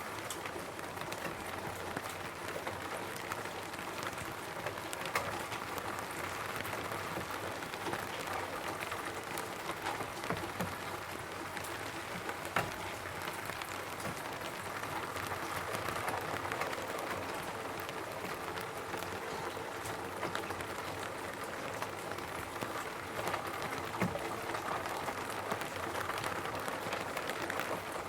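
Steady rain falling on a roof, a continuous patter with many individual drops ticking through it.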